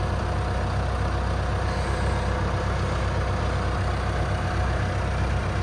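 Engine idling steadily, a low, even rumble with no revving.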